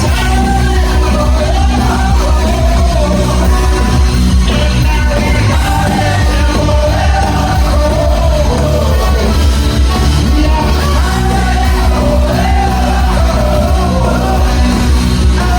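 Live rock band playing at full volume in a large hall, with heavy, steady bass and drums under a sung and shouted lead vocal that wavers up and down in pitch.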